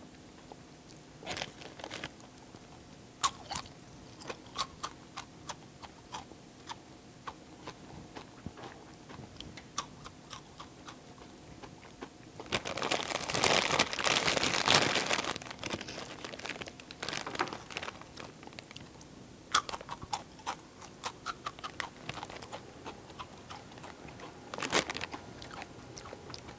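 Takis rolled tortilla chips being crunched and chewed loudly, in a string of sharp crunches throughout. About halfway through, a hand digs into the chip bag, making about three seconds of dense crinkling that is the loudest part.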